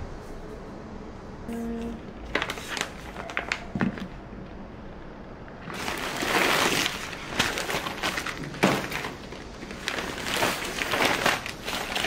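Brown paper shopping bag rustling and crinkling as hands rummage in it, loudest about six seconds in, with quick crackles of plastic food wrappers and knocks of packages set down on a stainless steel counter.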